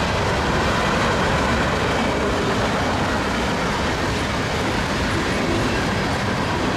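A CN mixed freight train's cars rolling steadily past at close range: tank cars, covered hoppers and boxcars making a continuous rumble of steel wheels on the rails.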